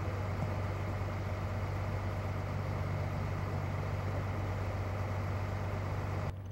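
A vehicle engine idling steadily with a constant low hum, cutting off abruptly near the end.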